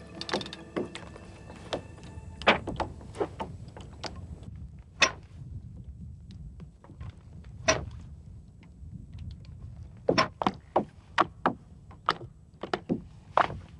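Oars of a small rowboat knocking and clunking in their oarlocks as the boat is rowed. The knocks are irregular, with a quick run of them near the end.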